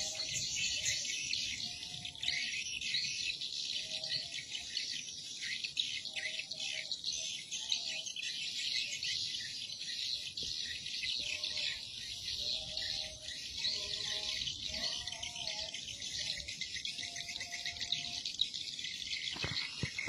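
Swiftlet-house external lure sound: a dense, continuous twittering of swiftlet chirps, with short lower whistled notes breaking in now and then, most often in the middle stretch.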